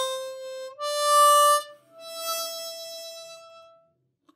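Harmonica played with the hands cupped around it: three held notes, each a little higher than the last, the third fading out about four seconds in. The notes are started with a light breath and no tongued 'ta' attack, giving them a soft onset.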